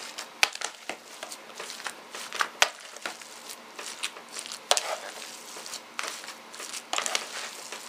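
Hands mixing raw ground turkey and ground beef in a plastic container: irregular wet squishing and kneading, with a few sharp clicks as the hand knocks against the container.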